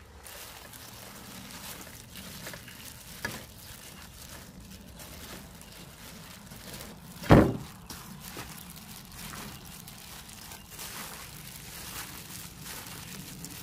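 Plastic-gloved hands mixing cut cabbage and green onions with chili seasoning in a stainless steel bowl: continuous wet squishing and rustling of the leaves and gloves, with a single loud thump about seven seconds in.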